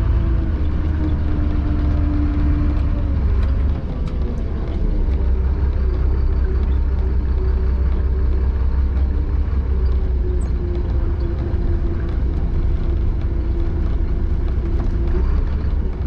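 Chenglong concrete mixer truck's diesel engine running under way, heard from inside the cab as a steady deep rumble with a constant engine hum. The engine briefly eases off about four seconds in, then picks up again.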